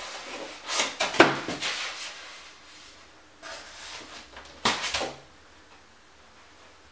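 Cardboard packaging being handled and shifted: a scraping burst with a sharp knock about a second in, then a softer rub and another knock and scrape near the five-second mark.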